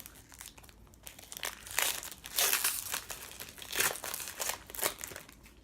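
Foil trading-card pack being torn open and crinkled by hand, in irregular crackling rustles.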